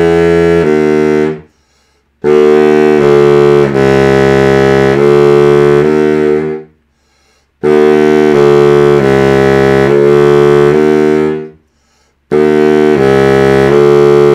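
King Zephyr baritone saxophone played slowly, slurring from one held note to the next in phrases broken by three short pauses. It is a play test after an overhaul, feeling each note slot in as the keys are pressed.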